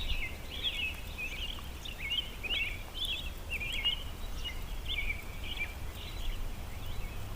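Birds chirping before dawn: short, quick chirps and twitters, several a second, over a steady low rumble.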